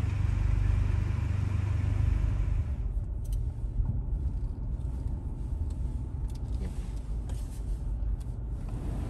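Car engine and road noise heard from inside the cabin: a steady low rumble that eases a little about three seconds in.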